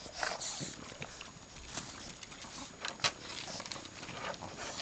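A cat flap clacking as a small bulldog-type dog pushes out through it, heard as scattered light clicks and knocks; the sharpest knock comes about three seconds in.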